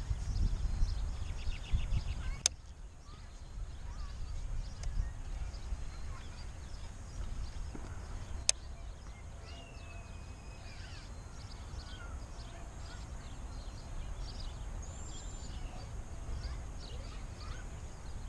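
Outdoor pond-side ambience: wind rumbling on the microphone and small birds chirping throughout, with one longer bird call about ten seconds in. Two sharp clicks stand out, one near the start and one about eight seconds in.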